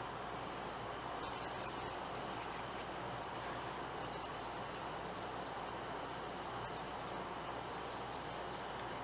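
Gas burner hissing steadily under a stainless steel pot of heating water, with light high crackling that comes and goes.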